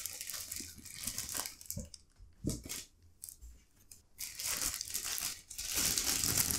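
Clear plastic bag crinkling as a radio-control transmitter is worked out of it by hand. The crinkling eases off for a couple of seconds in the middle, with a couple of soft knocks, then picks up again, louder near the end.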